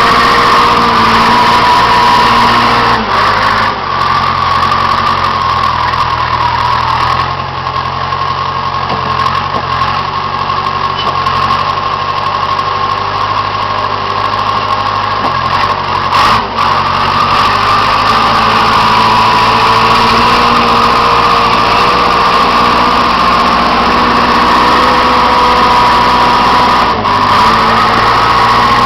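Case 350B crawler dozer's engine running steadily, its note dropping and rising again a few times as the load changes, with a constant high whine over it.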